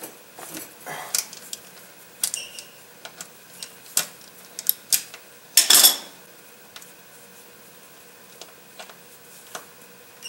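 Scattered metallic clicks and clinks of a wrench loosening the drain plug on the transmission pan of a Mercedes 722.6 automatic, with a louder clatter about six seconds in.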